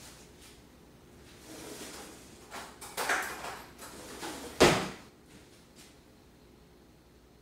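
Wooden kitchen drawer opened and rummaged in, then pushed shut with a thump about four and a half seconds in; the thump is the loudest sound.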